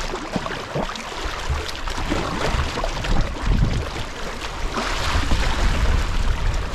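Paddling on a river: moving water and paddle splashes, with wind rumbling on the microphone.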